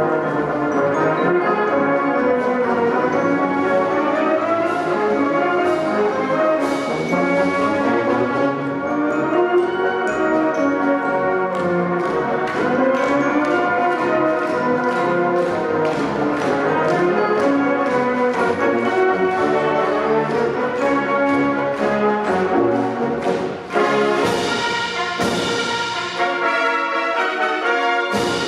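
Marching wind band playing: full brass over regular drum and percussion strokes. About 24 seconds in the music breaks off for a moment and comes back with brighter, busier percussion.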